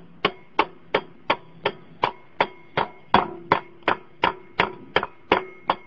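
A hammer tapping on metal at an even pace, about three strikes a second, each strike leaving a short metallic ring.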